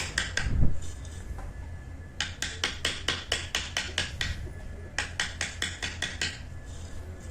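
Woodcarving chisel being struck in quick runs of light taps, about five a second, in three bursts, as it cuts a groove into the wood; a single low thump comes just over half a second in.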